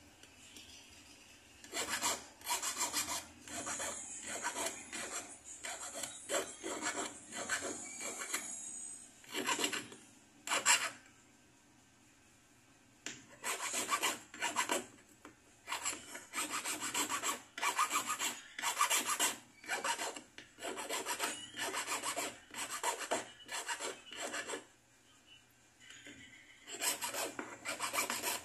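Hand file rasping on a small piece of a bangle bracelet that is braced against a wooden block. The quick back-and-forth strokes come in runs of about two a second, with two short pauses.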